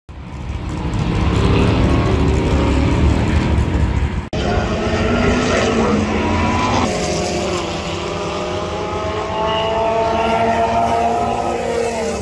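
Open-wheel single-seater race cars running hard past on the circuit, their engine notes rising as they accelerate and dropping sharply at gear changes. There is an abrupt break about four seconds in.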